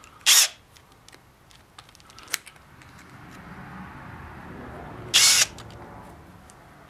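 Cordless drill's keyless chuck being worked by hand to change drill bits: two short bursts of clicking, one just after the start and one about five seconds later, with light handling noise between.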